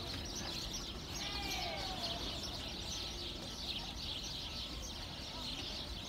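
A flock of small birds chirping continuously in a dense chorus of high, overlapping chirps, with a lower falling call about a second in.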